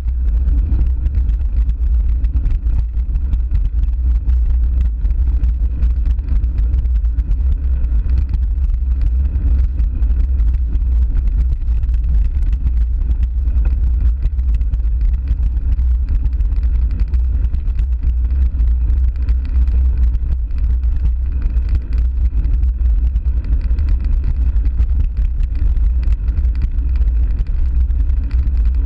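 Steady low wind rumble buffeting the microphone of a camera riding on a mountain bike, mixed with the tyres rolling over a dirt trail.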